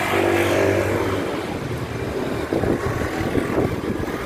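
City street traffic: a vehicle engine's steady hum for about the first second, then rough wind noise buffeting the phone's microphone.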